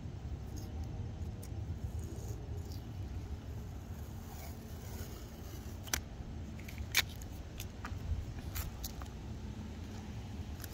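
Masking tape being pulled off its roll and torn, heard as a few short sharp clicks and snaps in the second half, the loudest about seven seconds in, over a steady low outdoor rumble.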